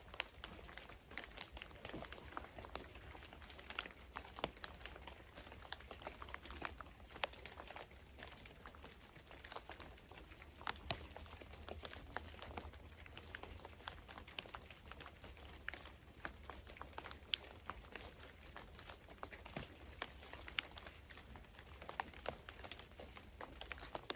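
Raindrops pattering in irregular, faint ticks and taps over a low steady rumble.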